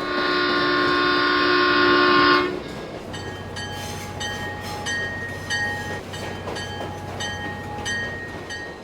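Train horn sounds a steady chord for about two and a half seconds, then cuts off. A railroad crossing bell follows, dinging about twice a second.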